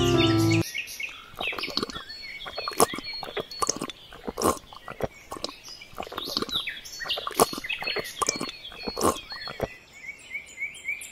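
Birds chirping, with many irregular light clicks and taps of small stone pebbles being handled and set down.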